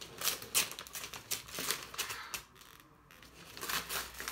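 Gift wrapping paper crinkling and rustling in quick crackles as a present is unwrapped by hand, with a lull of about a second near the middle.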